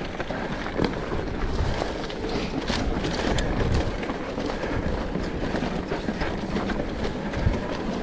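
Off-road bike riding over a rough dirt trail: tyres on loose ground and a constant rattle and clatter of the bike over bumps.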